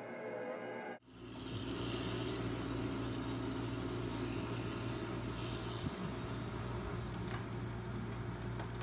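Music cuts off about a second in, giving way to the steady low running noise of a motor vehicle.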